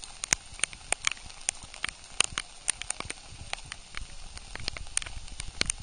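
Raindrops striking close to the microphone: irregular sharp ticks, a few each second, over a faint rain hiss, with a low rumble joining about four seconds in.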